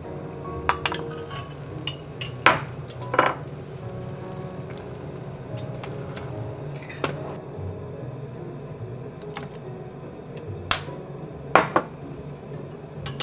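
A wooden spoon knocking and scraping against a saucepan while stirring cherries cooking in syrup: scattered sharp knocks, the loudest about two and a half and three seconds in and two more near the end.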